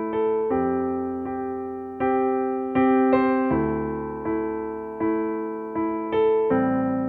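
Slow, gentle electric piano music: soft chords struck about once a second, each note ringing and fading before the next.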